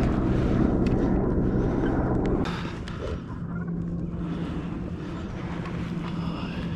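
A motorboat engine drones steadily, mixed with wind noise on the microphone. It drops in level about two and a half seconds in, then carries on more quietly.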